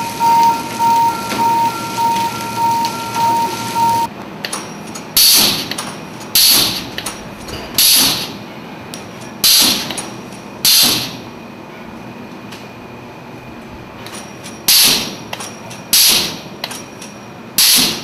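Filter press plate shifter pulling the filter plates apart one at a time, each plate knocking against the next with a sharp clack. There are eight clacks about a second and a half apart, with a pause of several seconds in the middle. Before the clacks, about four seconds in, a machine with a steady high whine and a regular pulse about twice a second stops suddenly.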